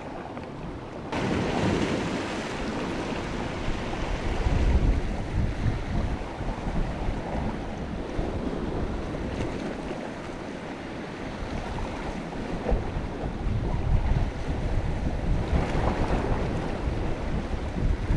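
Wind gusting on the microphone over the steady wash of sea waves, the noise getting louder about a second in.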